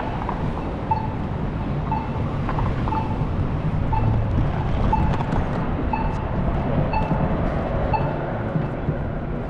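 Steady low rumble of city traffic and movement, with a short high electronic beep repeating about once a second.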